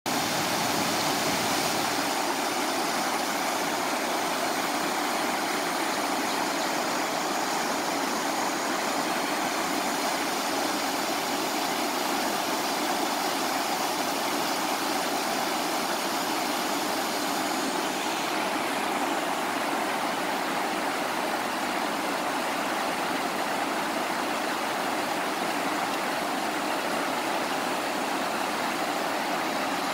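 River rapids: whitewater rushing steadily over granite boulders and slabs.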